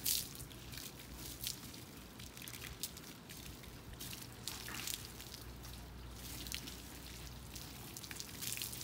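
Water from a hand-held hose sprayer hissing and splashing as a lathered dog is rinsed, with irregular splatters and dripping.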